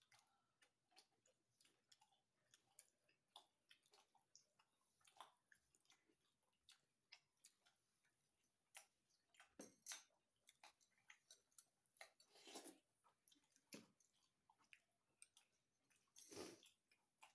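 Very quiet chewing of roti and matar paneer: soft, irregular mouth clicks and smacks, with three longer, louder chews in the second half.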